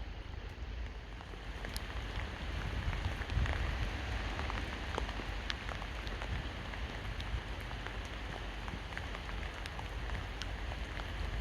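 Steady rain falling on hard surfaces, with many sharp individual drop ticks over an even hiss and a low rumble underneath.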